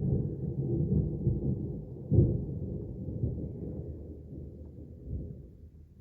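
Thunder: a deep rumble that breaks in suddenly, peaks in a sharp crack about two seconds in, then rolls on and fades.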